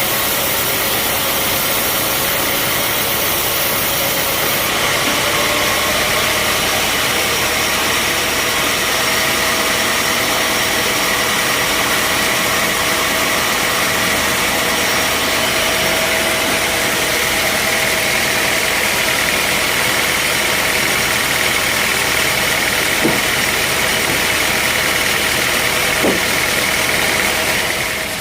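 Bandsaw sawmill running with a steady mechanical drone and hiss, its pitch rising slightly about five seconds in. Two short knocks come near the end.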